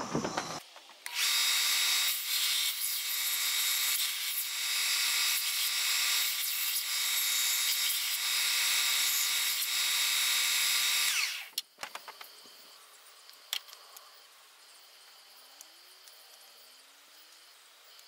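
Bench belt sander running with a steady motor whine for about ten seconds as a small dogwood box piece is sanded against the belt, then cutting off suddenly. A few light clicks follow, then faint insect chirping.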